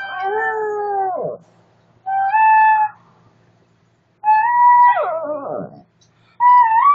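A shih tzu howling along with a flute, in four phrases with short silent gaps; the flute holds steady notes while the howls slide downward in pitch.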